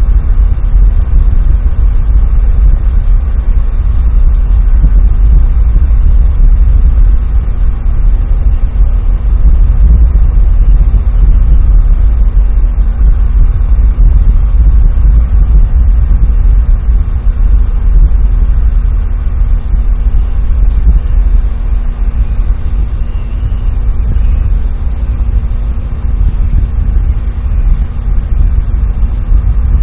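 Wind buffeting an outdoor microphone: a loud, steady low rumble, with a faint steady hum underneath.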